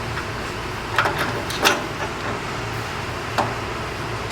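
A few sharp clicks and knocks of suspension spacers and hardware being handled while a fourth spacer is fitted: a cluster about a second in and one more after three seconds. A steady hum runs underneath.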